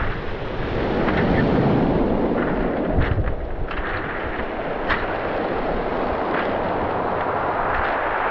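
Sea waves breaking and washing over a pebble beach in a steady noise of surf, with a few sharp clicks of stones in the middle and wind buffeting the microphone.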